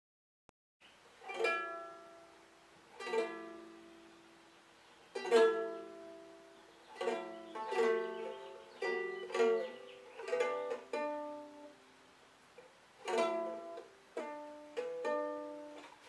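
Ukulele chords strummed and left to ring out, starting after about a second of silence. First come a few slow single strums, then a quicker run of strums in the middle, then slow strums again near the end.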